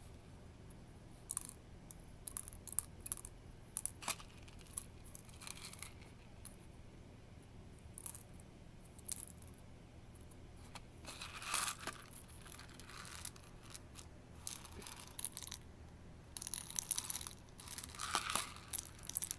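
Plastic airsoft BBs being dropped and poured into a ping pong ball: scattered small clicks, with bursts of rattling about halfway through and again near the end.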